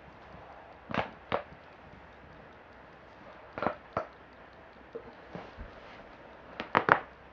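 Joints cracking: short, sharp pops, a pair about a second in, another pair in the middle, and a quick cluster of three near the end, the loudest of all.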